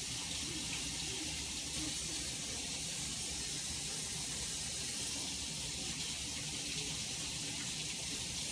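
Kitchen sink faucet running in a steady hiss while hands are washed under the stream.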